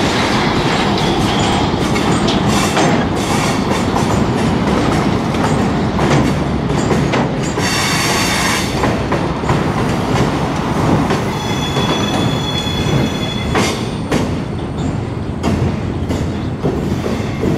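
Freight train cars rolling past with a steady rumble and clatter of wheels over the rail joints. The wheels squeal high-pitched as they grind around the curve, twice: about halfway through and again a few seconds later.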